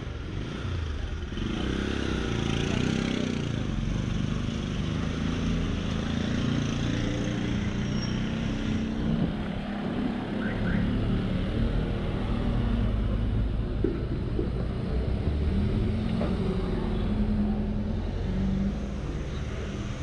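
Motorcycle engine coming up and passing close about a second or two in, then the engines of other road vehicles going by.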